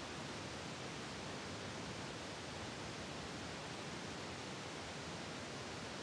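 Steady, even hiss of background noise with no distinct sounds standing out.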